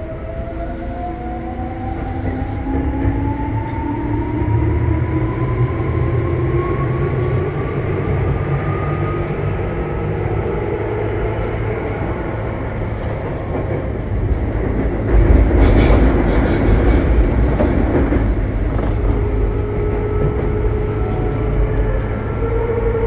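Tobu 9000 series electric train with AFE chopper control running, heard from inside a car: a motor whine climbs steadily in pitch over the first ten seconds as the train gathers speed, over a steady rumble of wheels on rail. The rumble grows louder and rougher about fifteen seconds in.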